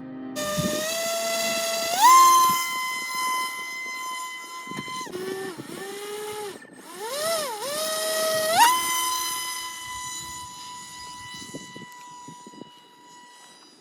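Electric motor of a homemade cardboard RC F-22 model plane whining, its pitch rising with throttle about two seconds in. It dips and wavers in the middle, rises again, then holds a steady high whine that slowly fades.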